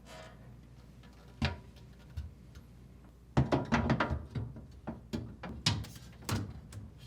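Refrigerator shelves being hooked into their rear supports and tilted down into place: one knock about a second and a half in, then a quick run of clicks and knocks from about halfway.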